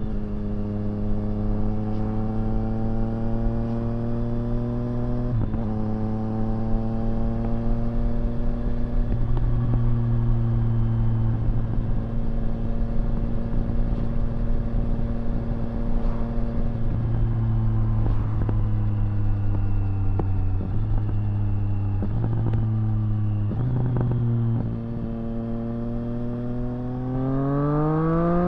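2024 Triumph Street Triple RS's 765 cc inline-three running through a Zard titanium exhaust, held at a steady engine speed under light throttle with a few small changes in pitch. Near the end it revs up sharply, pitch climbing fast under hard acceleration.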